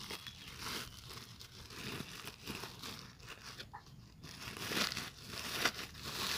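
Plastic sack crinkling and soil rustling under the hands as soil is packed in and the sack's rim is folded down: irregular handling noises, with louder crinkles near the end.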